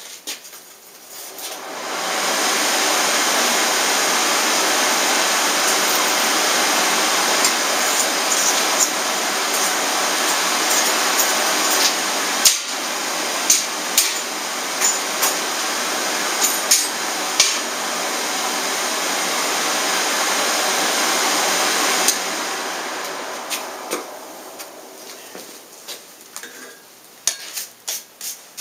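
Coke forge's air blower running steadily for about twenty seconds as the steel is given one more heat, then winding down, with a few metal clinks over it. Near the end comes a quick run of scraping strokes from a hand wire brush brushing scale off the steel at the anvil.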